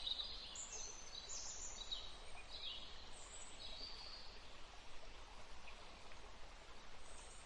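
Faint birdsong: short, high chirps over and over, above a low steady hiss.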